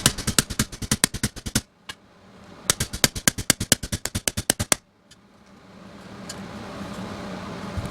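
Two runs of rapid, evenly spaced clicks, about seven a second, each lasting about two seconds with a short pause between; after them a steady low hum with a few faint ticks.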